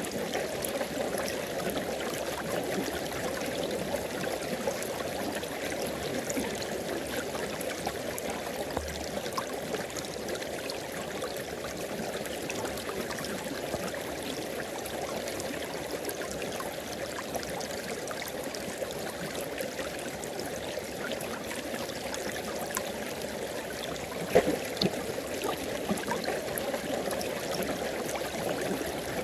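River water flowing and rushing steadily over its bed, with one brief, sharper sound standing out near the end.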